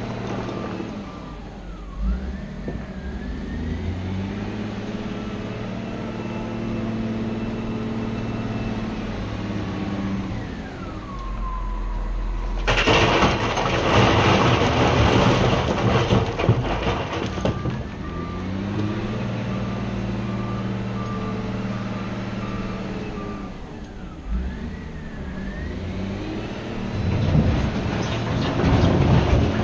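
Cat 966G wheel loader working, its diesel engine revving up and down, with the backup alarm beeping as it reverses. About 13 seconds in, a loud rush of rock tipping from the bucket into a screening plant lasts about five seconds, and then the backup alarm beeps again.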